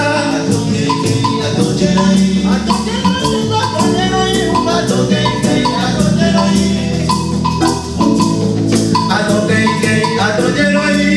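Lively music with percussion and a melodic line of short, repeated notes.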